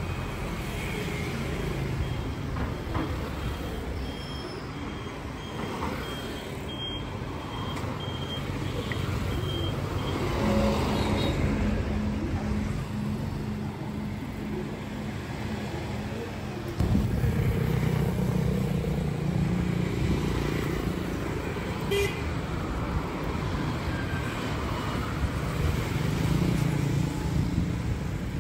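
Road traffic noise: vehicle engines running and passing, with the noise growing louder from about halfway through.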